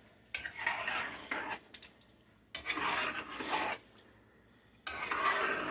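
A spoon stirring cream of mushroom soup and milk in a pot, scraping and squishing in three long strokes.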